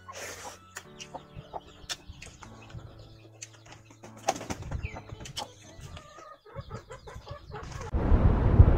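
Eating sounds: fingers mixing rice on a steel plate and mouth clicks while chewing, over low sustained background music notes. Near the end a loud rushing whoosh-and-rumble sound effect sweeps in.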